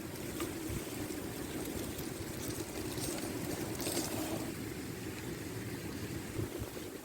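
Rushing water of a river in flood, with a steady low hum throughout and a few faint clicks.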